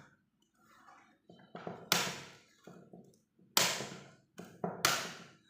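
Plastic laptop case being pried open, its glued panel coming loose in sharp snaps and cracks: three loud snaps with smaller clicks and creaks between.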